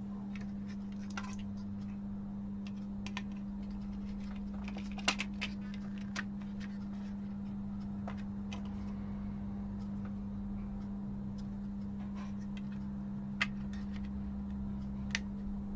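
Scattered small clicks and taps from handling the opened remote control's plastic parts, over a steady low hum.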